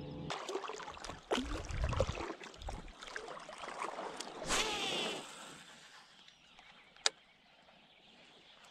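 Water splashing and sloshing around a float tube as it moves on the pond, mixed with irregular knocks of handling. It grows quieter after about five seconds, and one sharp click comes about seven seconds in.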